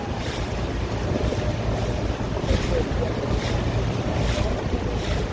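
A boat under way on open water: wind buffets the microphone and water rushes and splashes along the hull, over a steady low rumble. Hissy swells of spray come about once a second.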